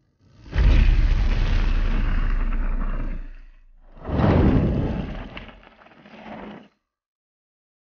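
Roar of burning flames in two loud rushing swells, the first about half a second in with a deep, steady rumble underneath, the second about four seconds in. The second fades and then cuts off abruptly to silence.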